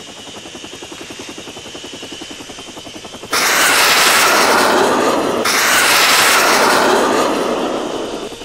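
Helicopter sound effect: a rapid rotor chop, then a sudden loud rushing roar a little over three seconds in, broken briefly halfway through and fading near the end.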